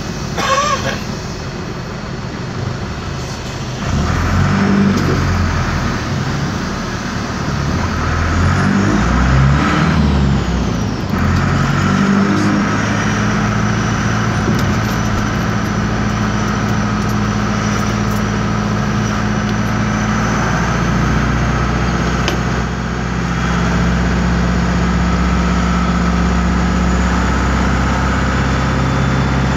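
The air-cooled Deutz diesel engine of an Otokar M-2000 midibus, heard from inside the bus. It is loud and climbs in pitch three times in the first dozen seconds as the bus accelerates through the gears, then runs at a steady note.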